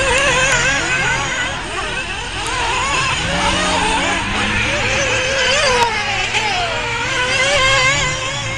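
Several 1/8-scale nitro RC buggy engines racing at once, high-pitched and buzzing, their pitches overlapping and constantly rising and falling as they rev up and back off through the corners.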